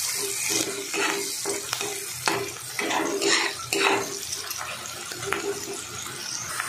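Onions and chilli-turmeric masala frying in hot oil in a metal kadai, sizzling steadily, while a metal spatula stirs and scrapes the pan again and again.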